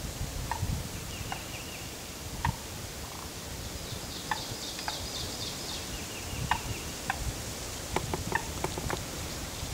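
Turkey calls: short calls repeated every second or so, with a quick cluster of them near the end, under higher, rapid songbird chirps.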